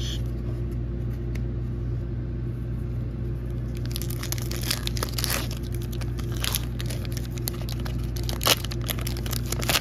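Foil wrapper of a Pokémon Fusion Strike booster pack crinkling and tearing as it is opened by hand, starting about four seconds in. A steady low hum runs underneath.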